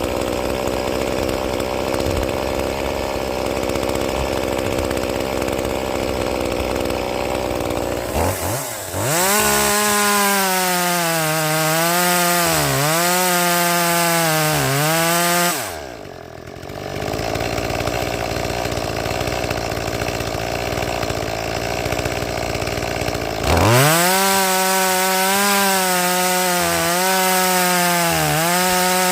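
Stock Echo 2511P two-stroke top-handle chainsaw running, revved to full throttle and cutting wood, its high whine dipping each time it loads in the cut. It drops back to idle about halfway through and revs up to cut again near the end.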